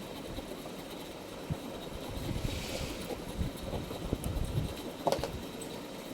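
Scattered light knocks and handling noises from work on a ceiling fan's capacitor wiring, with a brief hiss about two and a half seconds in and a sharp click about five seconds in.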